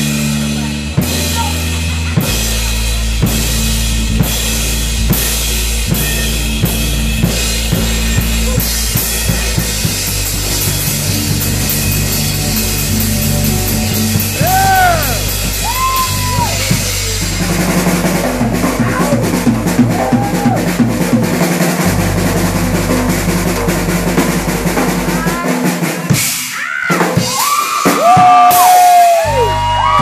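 Live rock band playing loudly, with the drum kit's snare, kick and cymbal crashes to the fore over steady bass notes. About 25 seconds in the bass stops and the drums hit closing accents while audience members whoop.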